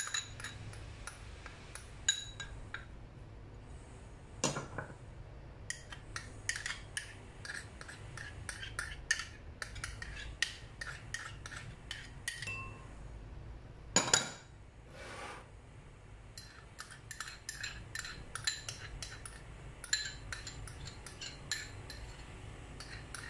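Repeated clinks, taps and scrapes of a metal spoon against small ceramic bowls as measured spices and sauces are scraped out into a mixing bowl. Two knocks stand out, about four and a half seconds in and about fourteen seconds in.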